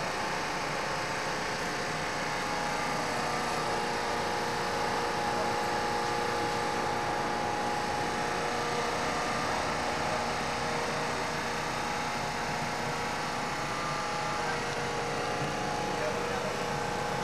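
Steady engine drone with a constant hum, unchanging throughout.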